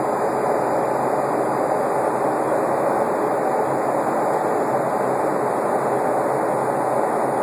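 Steady cabin noise of a Boeing 757 airliner in its climb after takeoff: an even, unchanging rush of engine and airflow noise heard from a seat inside the cabin.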